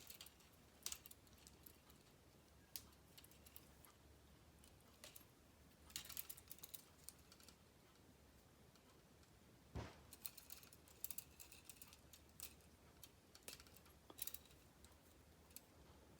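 Faint clicking of plastic K'NEX rods and connectors being handled and snapped together, in scattered clusters, with one duller knock about ten seconds in.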